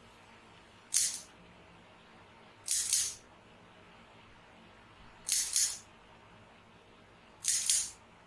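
Chiropractic adjusting instrument firing four short bursts, each about half a second long, the last two with a double stroke.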